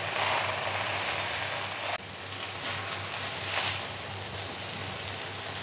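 Hakka noodles and vegetables sizzling in a hot wok over a high flame as they are tossed with two silicone spatulas; a steady sizzle with a few brief louder swells as the noodles are lifted and turned.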